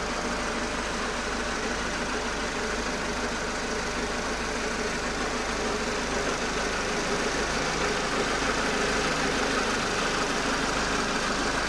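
Peugeot/Citroën TU5JP4 (NFU) 1.6-litre 16-valve petrol engine running steadily, getting slightly louder about halfway through. It makes a noise its owner suspects is abnormal.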